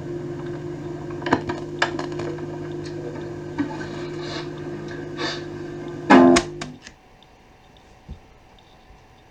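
Guitar music playing back from a cassette tape, ending on a long held chord with a few light clicks. About six seconds in there is a loud clunk and the music cuts off, leaving only faint tape or room hiss.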